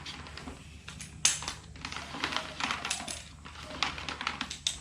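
Plastic hose reel of a pressure washer being handled and turned: a run of small clicks and rattles, with one sharp click a little over a second in.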